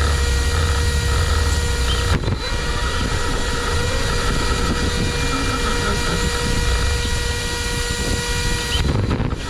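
Onboard sound of a JLB Cheetah-based FPV RC car driving: a steady low rumble and wind, with a constant electrical hum of several fixed tones over it. There are short breaks about two seconds in and again near the end.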